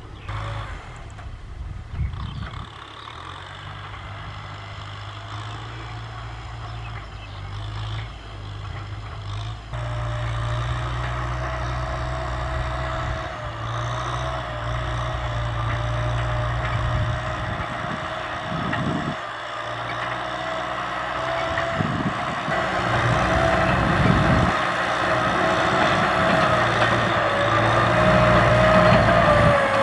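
Diesel tractor engine running steadily and getting gradually louder, with a high whine from about a third of the way in.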